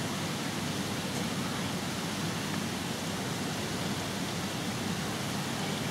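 Steady, even rushing hiss of a large indoor diving hall's background noise, with a faint low murmur underneath and no distinct events.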